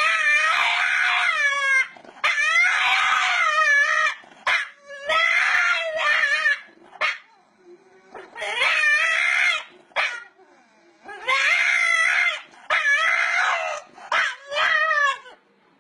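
A dog howling in a series of about seven long howls, each one to two seconds, with a wavering pitch and short pauses between them.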